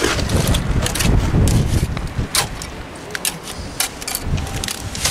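Steel trowel working wet cement into a wooden step form, giving a string of short scrapes and clicks over a constant low rumble.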